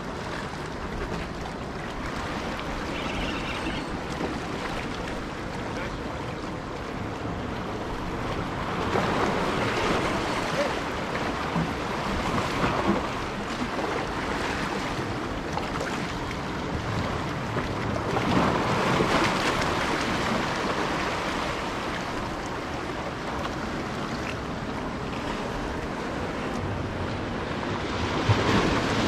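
Waves washing against the rocks of a jetty, surging twice along the way, with wind buffeting the microphone.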